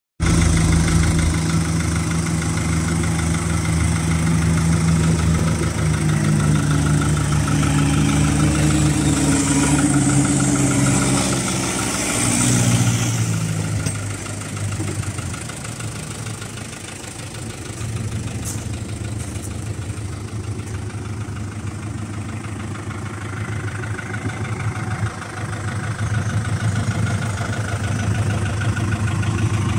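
1999 New Holland TL70 tractor's four-cylinder diesel engine idling steadily. Its pitch shifts briefly about a third of the way in, then settles lower and even.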